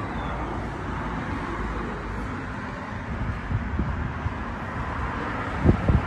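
Wind blowing on the microphone over a steady hum of distant street traffic, with a few low buffets of wind near the end.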